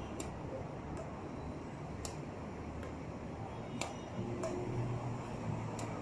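Badminton rackets hitting a shuttlecock back and forth in a rally: four sharp ticks about two seconds apart, over a low steady background rumble.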